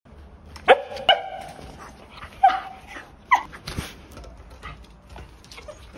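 Shetland sheepdog giving four short high yelps in the first few seconds, the second held a little longer.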